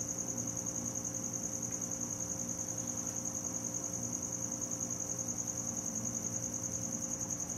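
A cricket chirping: one steady high-pitched, rapidly pulsing trill, over a faint low electrical hum.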